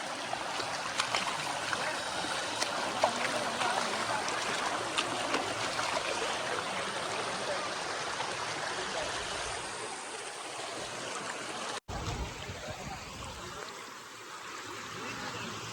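Steady rush of flowing water with small splashes. The sound drops out for an instant about twelve seconds in and carries on.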